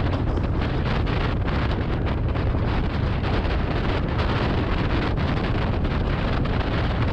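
A sledge's runners scraping over a packed-snow run at speed, mixed with steady wind rushing over the camera microphone, with many small knocks from bumps in the track.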